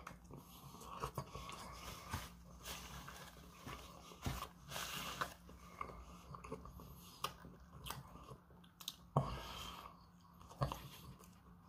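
Chewing and biting into a fast-food sandwich: wet mouth smacks and soft crunches in an irregular run, with a few sharper clicks, the loudest about nine seconds in and another near the end.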